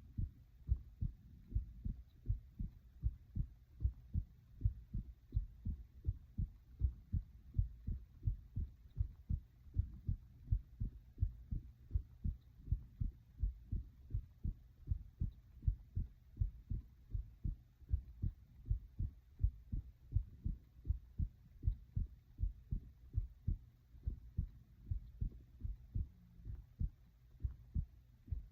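A person's own heart beating: a steady, regular rhythm of low thuds over a faint low hum.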